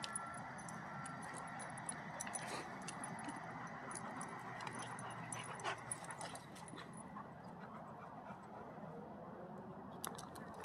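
Dogs play-wrestling, with panting and the light, rapid jingle of collar tags that thins out about seven seconds in.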